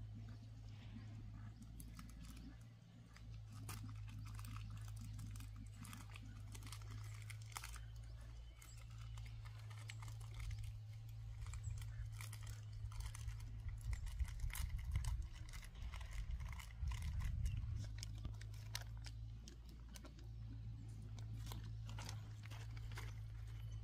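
Irregular crackling of a wrapper and chewing as a bread roll is eaten, over a steady low hum; the crackles grow louder about two-thirds of the way in.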